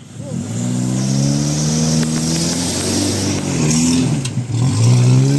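Off-road 4x4's engine revving hard and held high under load as the driver gives it gas to drive along a muddy rut. The revs dip briefly about four seconds in, then climb again.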